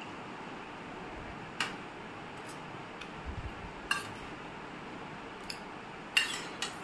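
A metal spoon clinking against stainless-steel bowls on a thali plate: about five short, sharp clinks a second or two apart, the loudest one about six seconds in.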